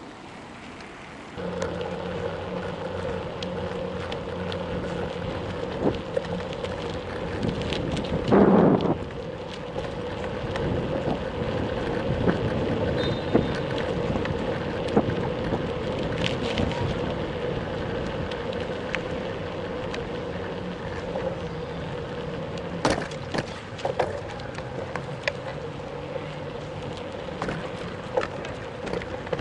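Riding noise picked up by a camera carried on a moving bicycle: a steady hum from tyres and wind with a constant low tone, broken by frequent clicks and rattles over bumps. About eight seconds in there is one brief loud sound that falls sharply in pitch.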